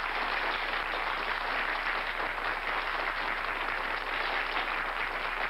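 Studio audience applauding, a steady clapping from many hands.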